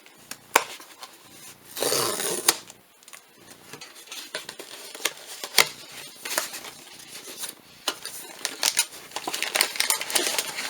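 Hands opening a cardboard blind box and handling its packaging: sharp clicks and taps with short bursts of rustling and tearing, the loudest rustle about two seconds in and a busier run of clicking and rustling near the end.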